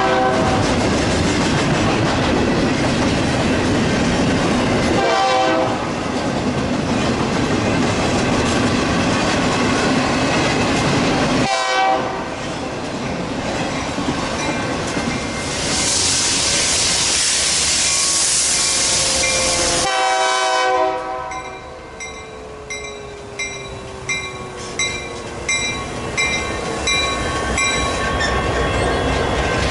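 BNSF intermodal freight train passing behind a consist of diesel locomotives, with the steady rumble and clatter of wheels on the rails and several short blasts of the horn. In the last third a bell rings at about one strike a second over quieter train noise.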